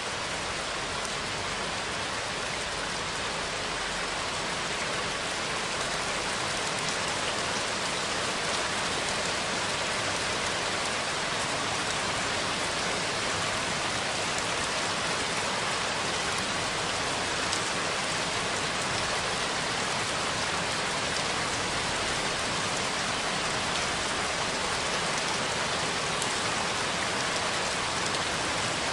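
Steady rain falling and pattering on a surface, an even hiss with faint scattered drop ticks.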